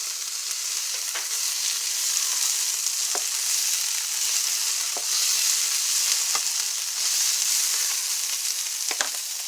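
Vegetables sizzling steadily in hot oil in a frying pan, with a few faint knocks of a utensil in the pan.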